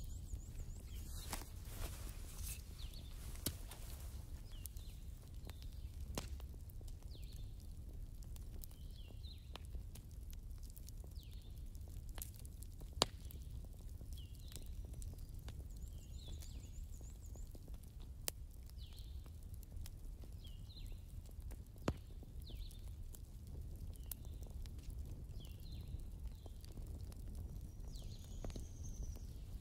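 Quiet ambience: a low steady hum with faint short chirps every second or two and a few sharp ticks.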